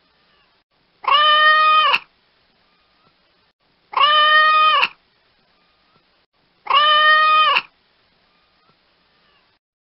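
Domestic cat meowing three times. Each meow lasts about a second and is held at a steady pitch with a drop at the end, and the same call repeats about every three seconds.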